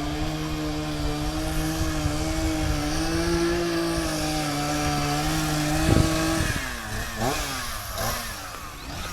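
Two-stroke chainsaw running at steady high revs, then about six seconds in a knock and the engine drops off, with a couple of quick rev swoops up and down near the end.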